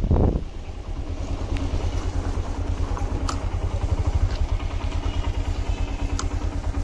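A two-wheeler's small engine idling, with a steady, even low pulsing and a few faint clicks.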